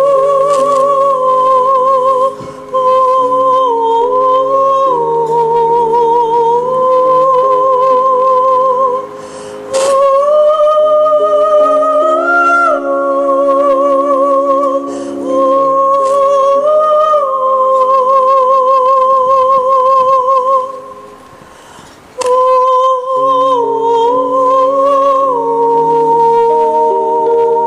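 Soprano singing a slow melody in long held notes with wide vibrato, accompanied by sustained piano chords. She pauses briefly a few times, and about three quarters through there is a longer hush before the voice comes back in.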